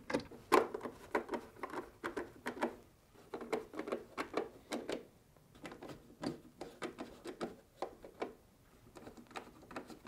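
Hand-turned quarter-inch nut driver driving screws into a refrigerator ice dispenser auger motor's plastic mount: a run of small clicks and scrapes, coming in clusters with short pauses between.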